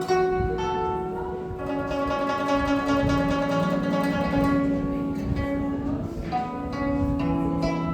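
Guzheng, the Chinese plucked zither, played solo: plucked notes ringing on over one another, with a passage of fast repeated plucking through the middle.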